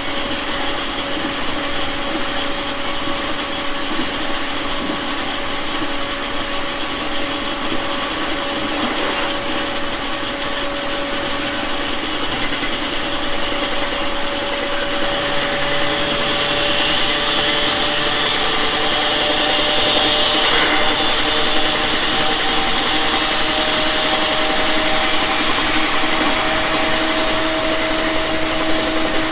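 JR 701 series 5500 subseries electric train running, heard from inside the car: steady rolling noise with a motor whine of several tones that rises slowly in pitch through the second half as the train gathers speed.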